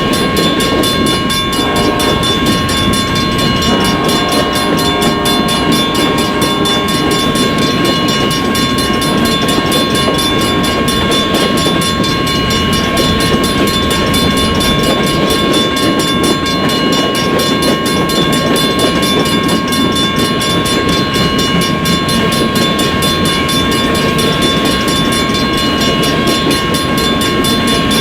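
Coal train cars rolling past on the rails: a steady rumble with fast, even clicking from the wheels, and a steady high-pitched squeal over it.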